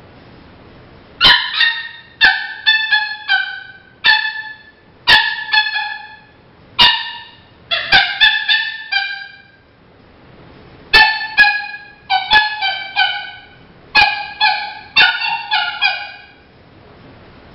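Coyote yips and barks blown on a four-reed mouth diaphragm predator call. It gives a series of short, sharp calls, each dropping in pitch, in quick runs, with a pause about ten seconds in.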